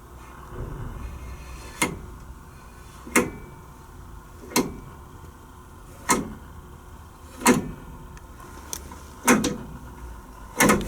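A locomotive cab control being worked over and over: a sharp mechanical clack about every second and a half, some seven times.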